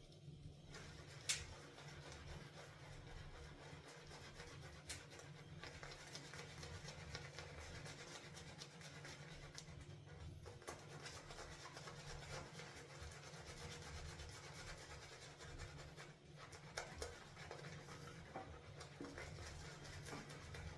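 Semogue boar-bristle shaving brush swirling and working thick shaving lather: a faint, continuous soft rubbing and scratching, with one sharp click about a second in.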